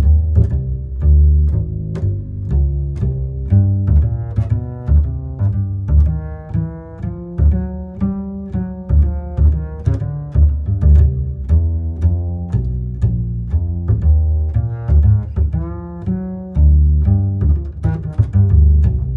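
Background music in which plucked and bowed low strings, a cello and double bass, play a rhythmic melody over a steady bass line.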